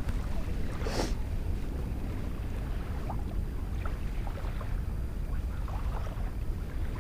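Wind buffeting the microphone outdoors, a steady low rumble, with one brief rush about a second in.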